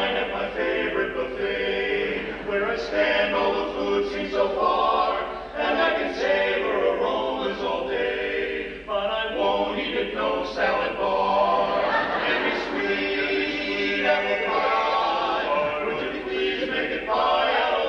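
Male barbershop quartet singing a cappella in close harmony, in sung phrases with short breaths between them.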